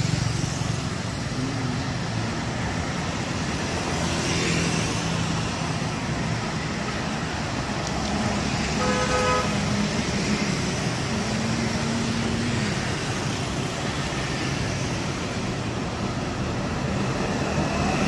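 Street traffic: cars and motor scooters driving past with a steady engine and tyre hum. About halfway through, a vehicle horn gives one short honk.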